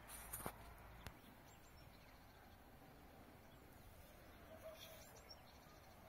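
Near silence with faint outdoor ambience. A few light plastic clicks in the first second or so come from the phone holder being handled and taken off the tripod head, and a faint bird chirps briefly near the end.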